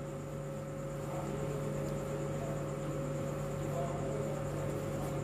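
Quiet room tone: a steady low hum and faint hiss, with no distinct sounds from the work.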